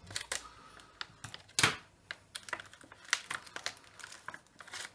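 Clear plastic blister packaging being opened and handled, the trading cards inside pulled out: irregular crackles and clicks of stiff plastic, with one louder snap about one and a half seconds in.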